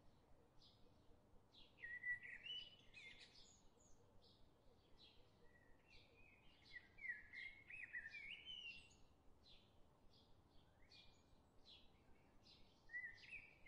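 Faint birdsong: short high chirps repeating about twice a second, with louder warbling song phrases breaking in three times, a couple of seconds in, in the middle and near the end.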